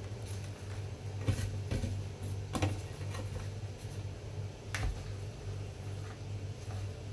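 Metal spoon tapping and scraping against a plastic basin while scooping a cassava mixture, a few sharp taps spread through, over a steady low hum.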